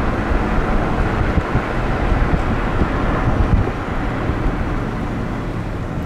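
Wind buffeting the microphone outdoors: a loud, steady rushing noise with uneven low gusts, easing a little near the end.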